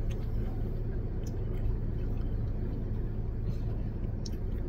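Steady low hum of a car's engine idling, heard from inside the cabin, with a couple of faint clicks.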